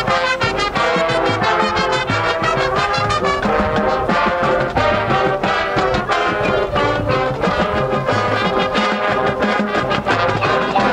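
High school marching band playing its competition show: full brass section sounding sustained chords over a steady drumline beat, loud and continuous.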